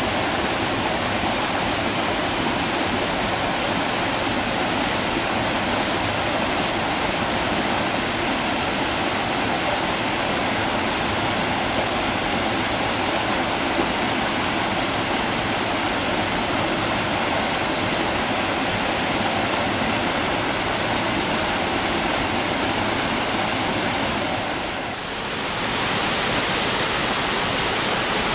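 Steady rush of water tumbling over the boulders of a rocky stream, with a short dip about three-quarters of the way through, after which it sounds a little brighter.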